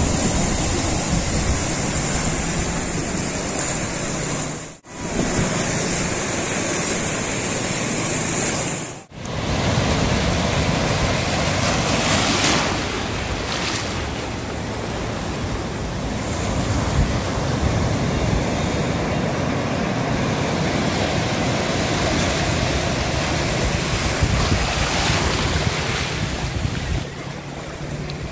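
Sea surf breaking and washing in around shoreline rocks: a steady rush of waves that cuts out briefly twice, about five and nine seconds in.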